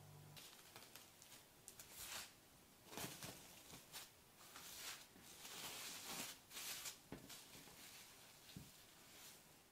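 Plastic cling film crinkling and rustling in irregular bursts as hands wrap it around a folded block of croissant dough on a worktop.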